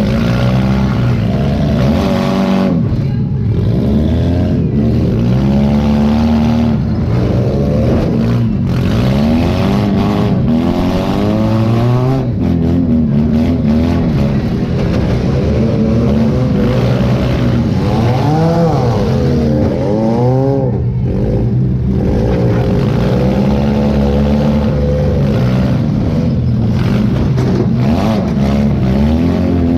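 Demolition derby car engine heard from inside the cab, revving up and falling back again and again as the driver accelerates, lifts off, and accelerates again.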